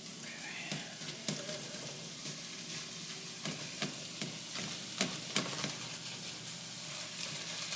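Ground turkey sizzling in a skillet while a slotted spatula stirs and breaks it up, with scattered sharp taps and scrapes of the spatula against the pan.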